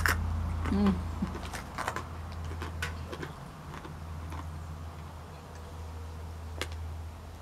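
Scattered small clicks and crackles from a person eating a snack and then handling and drinking from a plastic water bottle, over a steady low hum.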